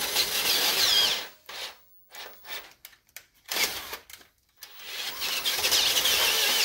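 Bosch cordless drill boring out the tapered tie-rod hole in a cast Dana 60 steering knuckle with a twist bit, in two long runs with short bursts between. A wavering high squeal rides on the grinding as the bit bites into the steel.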